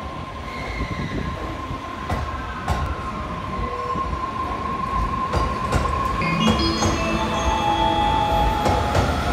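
JR East E657 series limited express electric train pulling out and gathering speed, running with a steady whine and a few clicks from the wheels. About two-thirds of the way in, several higher and lower motor tones join the whine and the running grows louder as it speeds up.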